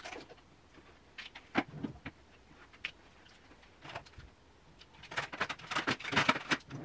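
Makeup products being put away into an open drawer: scattered light clicks and knocks, with a quick run of clattering clicks near the end.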